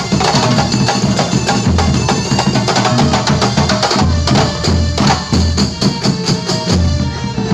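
Kuntulan ensemble of terbang frame drums playing a fast, dense rhythm, with deep low drum thumps every second or so.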